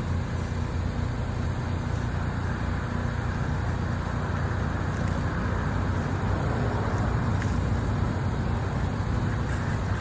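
Pressure washer's engine running steadily, with a steady hiss over the low drone.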